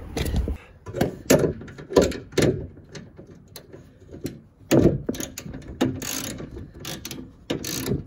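Irregular metal clicks and clanks of solar-panel mounting hardware being worked on a roof-rack pipe as the panel is fastened down, with several louder knocks.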